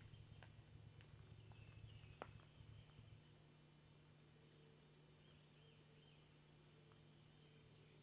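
Faint forest ambience: a steady high-pitched insect trill, with a few soft bird chirps and a couple of faint clicks in the first few seconds.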